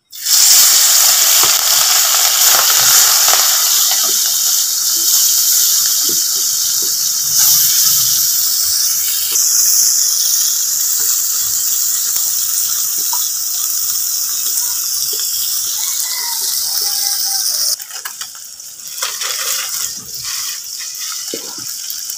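Small puti fish (pool barb) frying in hot mustard oil in a karahi, a loud hiss that starts as the fish go in. The sizzle drops sharply to a quieter level about eighteen seconds in, with a few light knocks.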